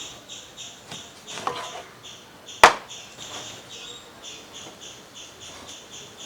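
A knife chopping raw chicken into small pieces: a few light cuts, then one sharp, loud chop about two and a half seconds in. A steady rhythmic high chirping, about three pulses a second, runs behind it.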